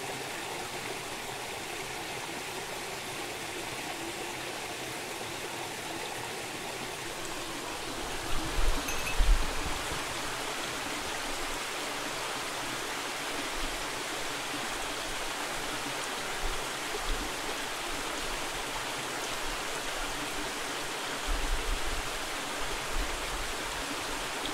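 Mountain stream running, a steady rush of water. A few deep low thumps come about a third of the way in and again near the end.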